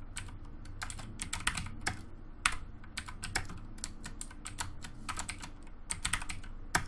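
Typing on a computer keyboard: a run of quick, irregular keystroke clicks, with a low steady hum underneath.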